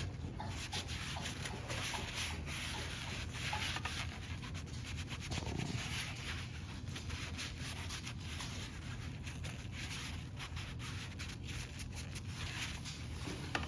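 Gauge cluster surface being wiped clean with alcohol: continuous irregular rubbing with small scratchy ticks.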